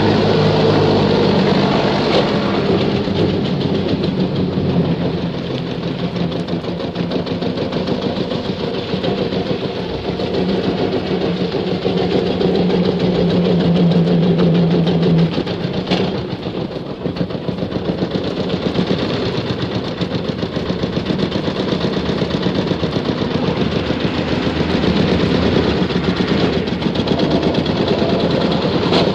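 Old car's engine running as the car is driven, a steady rough hum. About halfway through there is a click, and the level dips for a few seconds and then picks up again.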